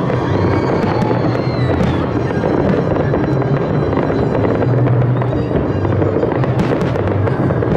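Large fireworks display: aerial shells bursting and bridge-hung waterfall fireworks pouring sparks. It is a continuous, dense run of booms and sharp crackles with no let-up.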